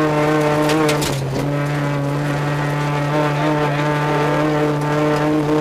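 Dodge Neon rally car's four-cylinder engine running at steady revs, heard from inside the cabin, over a haze of tyre and gravel noise. The engine note breaks briefly about a second in.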